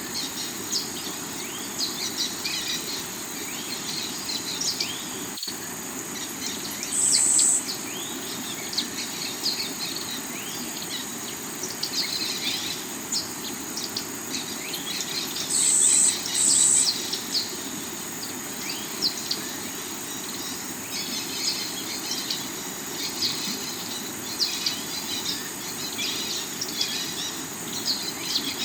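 Forest ambience over a rocky river: a steady rush of flowing water with many birds chirping and a constant high insect trill. Short, louder, high-pitched insect bursts stand out about 7 seconds in and twice around 16 seconds.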